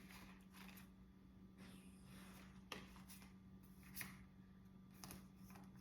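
Faint handling of tarot cards: soft swishes and a few light flicks as the deck is shuffled and laid out, over a steady low hum.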